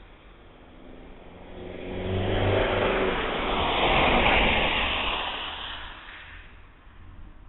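A car passing by: engine and tyre noise swelling over a couple of seconds, loudest around the middle, then fading away.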